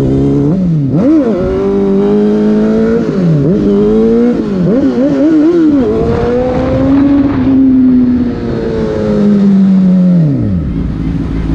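Sport motorcycle engine heard from the rider's seat while riding, revving with the throttle: quick blips at the start, wavering revs through the middle, a steadier pull for a few seconds, then the revs drop away near the end as the throttle is closed.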